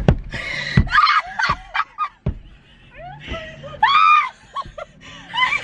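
Young women laughing hysterically inside a car cabin, breaking into high shrieks of laughter, the loudest about four seconds in. A few sharp knocks in the first couple of seconds.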